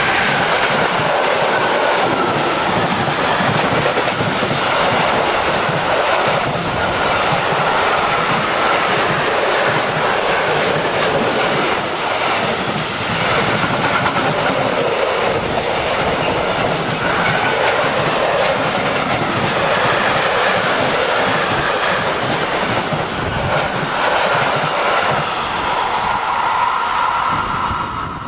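Freight train of tank and flat wagons passing at speed close by: continuous rolling noise of steel wheels on rail with repeated clickety-clack over the rail joints and a steady high tone running through it.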